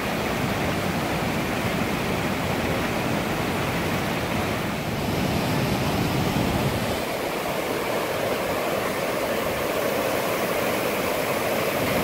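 Steady rushing of stream water, white water pouring over rocks, with the low rumble thinning about seven seconds in.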